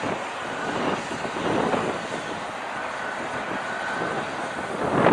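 Komatsu PC2000 hydraulic mining excavator running steadily as it digs its bucket into a heap of earth, a dense, even machine rumble with a faint high whistle coming and going.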